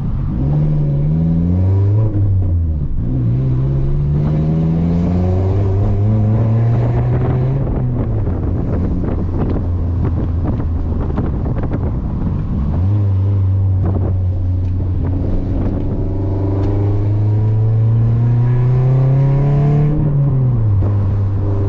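Toyota Corolla's four-cylinder engine pulling through the gears of its manual gearbox: the engine note rises under acceleration and drops sharply at each gear change, three times, with a steadier cruising stretch in between.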